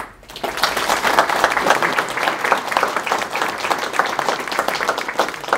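Audience applauding: clapping starts about half a second in, builds within the first second and then holds steady.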